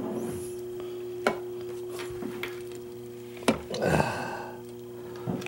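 Handling sounds of a loudspeaker's trim piece and cabinet on a wooden table: sharp clicks about a second in, again at about three and a half seconds and near the end, with a short scraping rub just before four seconds. A steady low hum runs underneath.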